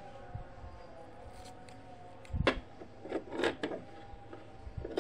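Scissors snipping frayed threads off the raw edge of a sewn fabric seam: a sharp snip about halfway through, then a few quick snips close together.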